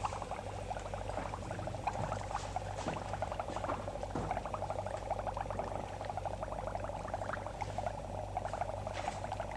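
Liquid bubbling at a rolling boil in a glass flask over a burner: a steady, fast crackle of small bubbles, over a low steady hum.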